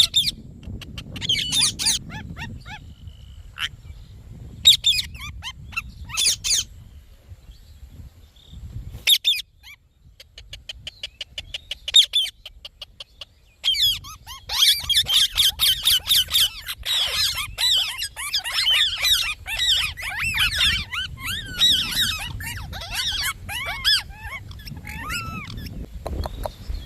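Indian ringneck parakeet calling: short shrill squawks every second or two, then from about halfway a long run of rapid chattering calls.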